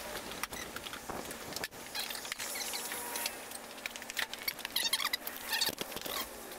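Light clicks and scrapes of a screwdriver working metal parts on a 1948 Farmall H engine, with high-pitched chirping in the background.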